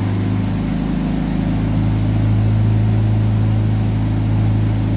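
Large forklift's engine running at a steady idle, a loud, even low hum.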